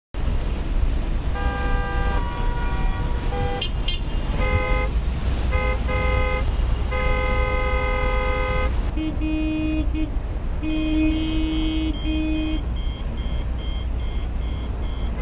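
City traffic: a steady low rumble of traffic with car horns honking, several horns at different pitches overlapping, then lower horn toots. Near the end a fast repeated beeping, about three beeps a second.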